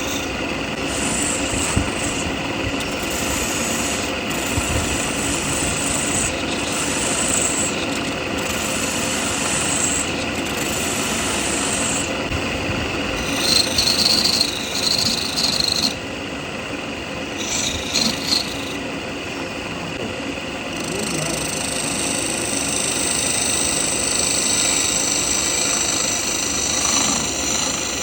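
A power tool working wood, running continuously, with two louder, higher-pitched passes about halfway through.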